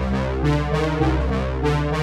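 Background music: a synthesizer keyboard tune over a deep bass line with a steady beat.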